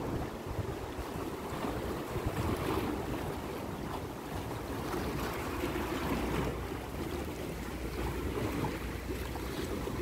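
Wind buffeting the microphone in uneven gusts, with the wash of sea water underneath.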